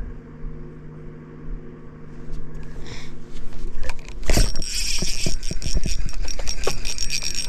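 Steady low hum of a small motor. About four and a half seconds in comes a cast, then a spinning reel is cranked, a high thin whine with rapid ticking.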